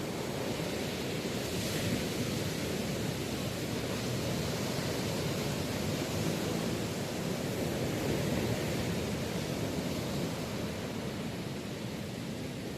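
Strong surf breaking on a sandy beach in high wind: a steady rushing noise, with a brighter hiss about two seconds in.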